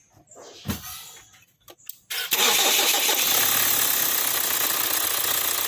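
A thump and a few clicks, then a 2014 Kia Sportage's engine starting about two seconds in and running steadily. The engine's new alternator pulley is in and there is no abnormal noise from it.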